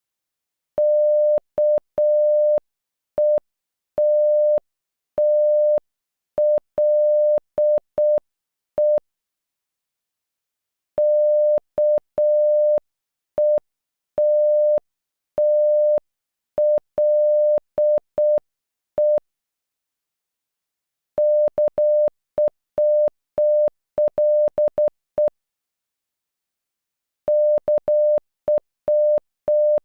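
Computer-generated Morse code beeps, a single steady tone of about 600 Hz, spelling "KETTLE" (-.- . - - .-.. .) in short dots and long dashes. The word is sent twice slowly, and about 21 seconds in it is sent twice more at a faster speed.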